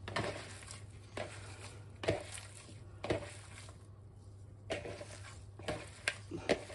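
Raw chicken sausage meat and herbs being mixed in a bowl, with a squelch or knock about once a second and a few quicker ones near the end.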